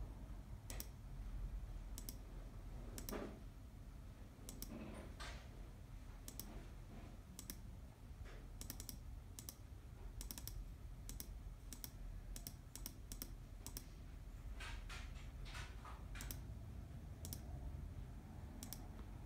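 Computer mouse buttons clicking at irregular intervals, often two or three clicks in quick succession, over a low steady hum.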